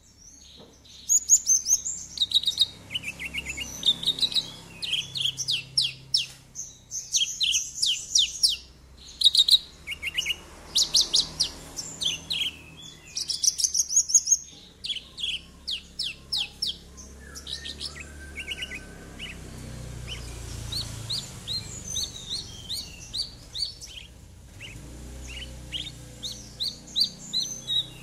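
A Javan bush lark sings a rapid, varied song of chirps and fast trills. The song is dense and loud for the first half and grows sparser and quieter from about halfway on.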